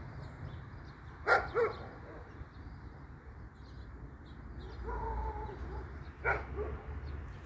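A dog barking: two quick barks about a second and a half in, and another near the end, over a low steady rumble.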